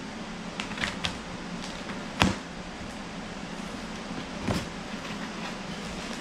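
Cardboard shipping box being opened by hand: a few light clicks and scrapes, a sharp snap about two seconds in and another about four and a half seconds in, over a steady background hum.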